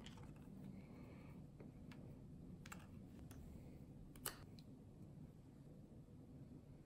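Faint clicks and rustles as a lavalier microphone's cable and small plastic parts are handled, with one sharper snip about four seconds in as a tag is cut off the cable.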